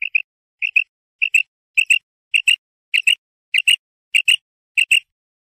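Female common quail calling: a short doubled note repeated ten times at an even pace, about one pair every 0.6 s, stopping about five seconds in.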